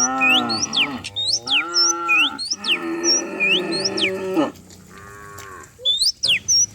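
Cattle mooing: several long, drawn-out moos one after another, a faint one past the middle. Birds chirp in quick repeated sweeping notes throughout.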